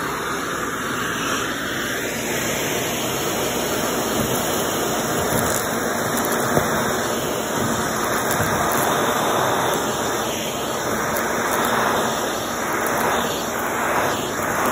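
Shark vacuum cleaner running on carpet, a steady whooshing motor and suction noise, as it picks up a pile of shredded tissue and birdseed. A few sharp clicks come through, from about five seconds in.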